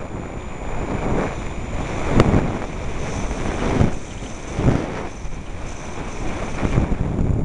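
Wind rushing over the camera microphone and skis hissing over snow on a downhill run, surging in waves about once a second. There is one sharp click about two seconds in.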